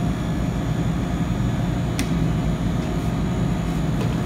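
Steady low drone of commercial kitchen machinery and ventilation, with one sharp click about two seconds in.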